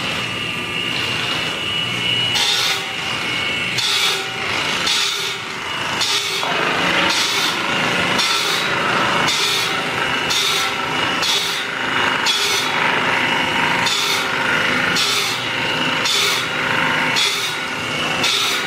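A saw cutting through wood with even back-and-forth strokes, about one and a half a second, starting about two seconds in.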